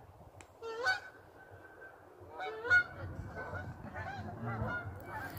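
Canada geese honking as a flock flies overhead: a single call about a second in, then repeated, overlapping honks from the middle on.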